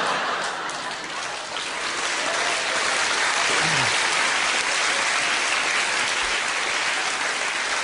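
Theatre audience applauding and laughing after a comedy punchline, a dense steady clapping.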